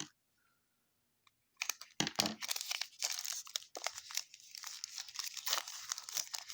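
Trading card pack wrappers crinkling and tearing as they are ripped open by hand, starting about a second and a half in after a brief silence.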